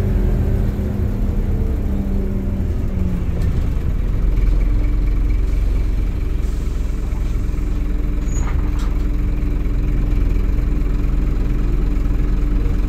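Scania double-decker bus engine heard from inside the upper deck: its pitch falls as the bus slows to a stop, then it settles into a steady idle.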